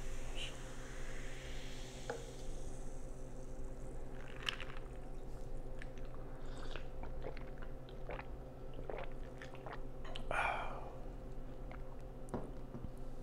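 Soda fizzing in a glass of ice as the pour ends, fading out over the first couple of seconds, then close-miked sips and swallows with scattered small clicks and one louder gulp or breath about ten seconds in. A steady low electrical hum runs underneath.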